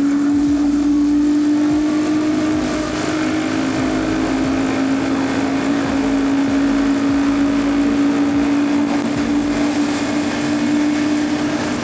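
Royal Enfield Guerrilla 450 single-cylinder engine running at a steady highway cruise, a constant droning hum under the rush of wind and road noise.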